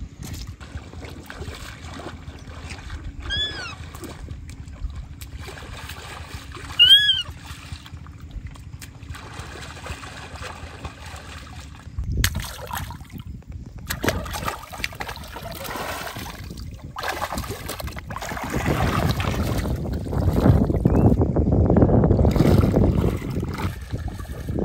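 Three short high squeals that rise and fall in the first eight seconds, the loudest about seven seconds in. In the second half, feet wade and splash through a shallow stony river, louder near the end.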